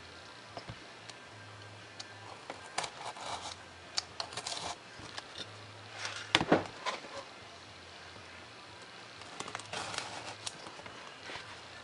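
Craft knife scoring straight cuts through 3 mm Depron foam sheet along a plastic ruler: short scratchy strokes in a few clusters, with a sharper knock about six seconds in as the ruler is shifted.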